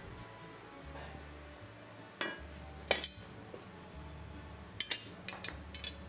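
Metal clinks and knocks as a metal speed square and a metal guide rail are handled and set down on a wooden workbench: sharp clicks about two and three seconds in, then a quick cluster of lighter clinks near the end. Soft background music underneath.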